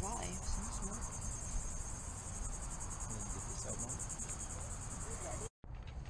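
Insects trilling in a steady, high-pitched chorus with a fast, even pulse, over a low rumble. The sound drops out for an instant near the end and then carries on a little fainter.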